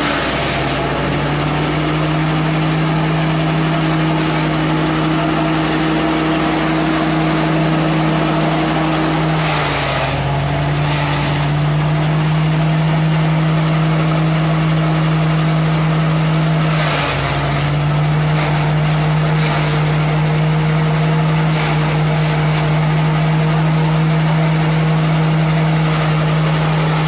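Small gasoline engine driving a grass chopper, running steadily at high speed. Three times, near the start, about ten seconds in and about seventeen seconds in, its pitch sags briefly under the load of stalks being fed in, with bursts of chopping noise as the cut material sprays out.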